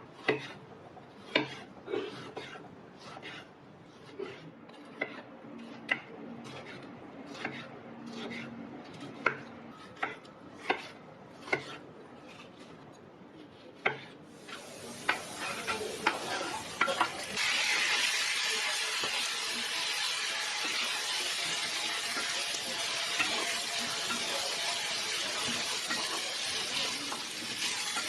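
About a dozen separate sharp knocks of a utensil or knife against cookware. Then, about halfway through, food starts sizzling in hot oil in a pan and quickly grows to a loud, steady frying hiss as it is stirred.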